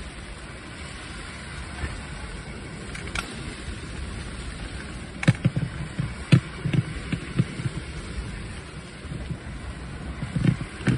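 Steady patter of rain on the fabric of a beach shelter, with a run of short, soft knocks and thumps about five seconds in and again near the end.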